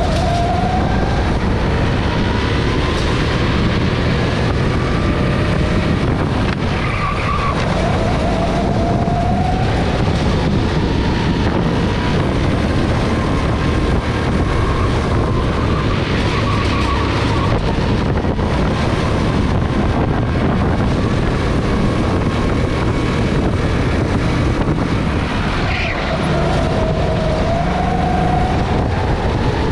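Go-kart engine running hard at racing speed, its pitch dropping and then climbing again a few times as the kart brakes for corners and accelerates out of them.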